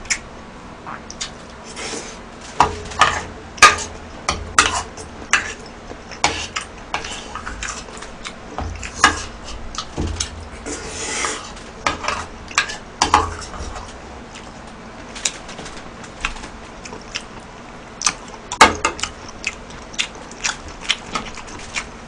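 A metal spoon clicking and scraping against a plastic takeout tray in short, irregular strokes as food is scooped up, with close chewing sounds in between.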